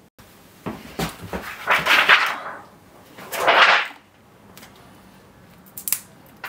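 Clear adhesive tape pulled off a roll in two noisy pulls, about two and three and a half seconds in, after a few light clicks, with a couple of sharp clicks near the end as the tape is handled and pressed down.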